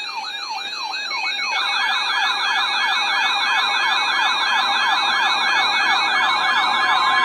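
Electronic sirens wailing, one sweeping up and down about three times a second. A second siren with a faster sweep joins about a second and a half in, and the sound builds louder. A steady tone comes in near the end.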